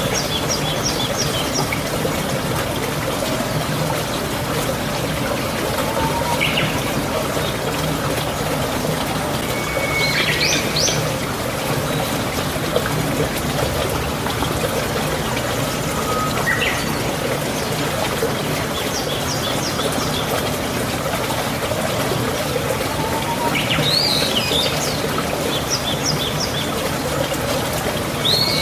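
Wild birds calling every few seconds, short high trills and quick rising notes, over a steady rush of running water.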